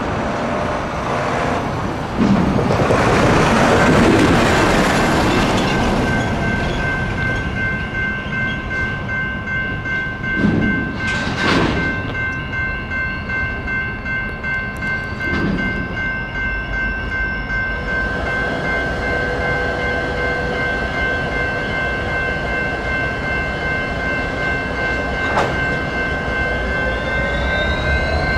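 Railroad grade-crossing warning bell ringing steadily as the signals activate for a train on a spur track. A sharp knock comes about eleven seconds in, and a rising tone enters near the end.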